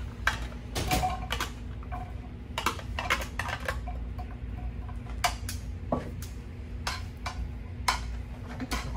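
Metal tongs and small metal containers clinking and tapping against a frying pan as garlic is added to hot oil and stirred, many short sharp knocks over a steady low hum.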